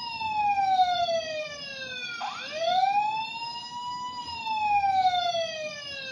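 Battery-powered toy fire truck's electronic siren sound effect wailing: the pitch falls, jumps back down and climbs again about two seconds in, then falls once more.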